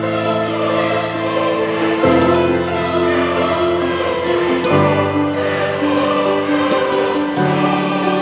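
Background music of sustained, choir-like chords that change about every two and a half seconds.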